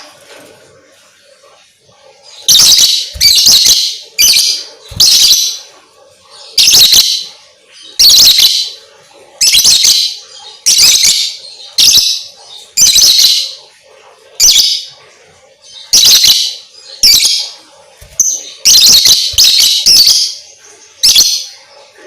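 Lovebird calling in a long run of short, loud, high-pitched chirping bursts, roughly one a second, beginning a couple of seconds in.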